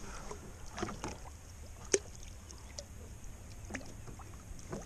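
Scattered knocks and taps on the hull of a plastic fishing kayak as a fish measuring board is handled, over a steady low rumble; the sharpest knock comes about two seconds in.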